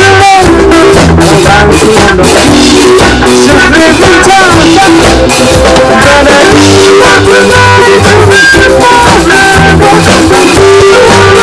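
Small rock band playing live: electric guitar, bass guitar and drum kit, with a steady beat.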